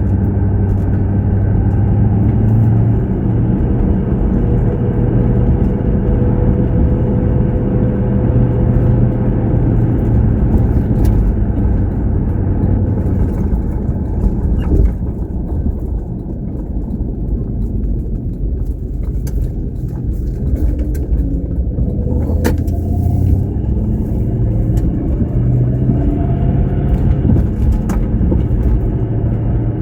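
Car driving: steady engine drone and road rumble, with a few brief clicks.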